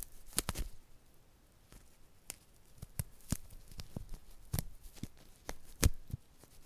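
A clip being worked by hand: a string of irregular, sharp clicks and snaps, the loudest about six seconds in.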